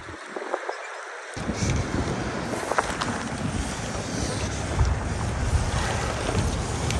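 Wind buffeting the microphone, a low rumble that sets in about a second and a half in and continues, over the wash of small waves at the shoreline.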